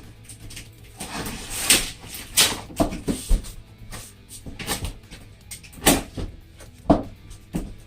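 Cardboard shipping box being handled and opened: a run of irregular knocks and clacks with short scraping rustles between them.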